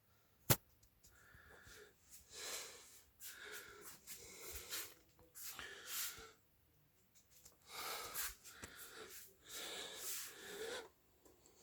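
Irregular rustling and scraping of packaging being handled, in short bursts, with one sharp click about half a second in.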